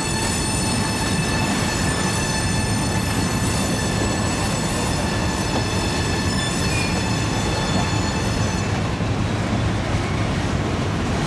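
Freight train's hopper cars rolling past with a steady low rumble, overlaid by a high, steady wheel squeal that dies away near the end.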